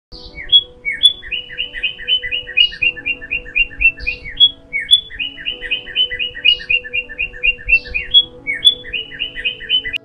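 A small songbird singing fast runs of short paired chirps, about six a second, broken by higher single notes. The same phrase comes round again about every four and a half seconds.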